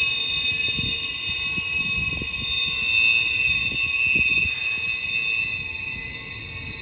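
Double-stack intermodal freight train rolling through tight curves, its wheel flanges squealing against the rail in a steady, high-pitched squeal of several tones, with irregular low clunks from the wheels and cars underneath. The sound eases off a little near the end.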